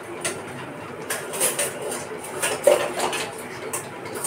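Steel kitchen utensils clinking and knocking several times, the loudest knock about two and a half seconds in with a brief ring.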